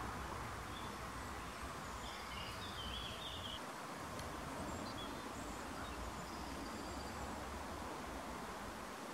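Outdoor nature ambience: a steady hiss of background noise with faint bird chirps, a cluster of short calls between about one and three and a half seconds in and a few more around five seconds.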